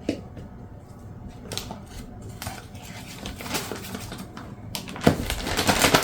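Ziploc plastic bag rustling and crinkling as flour is put into it, with a knock near the start and a louder stretch of crinkling in the last second.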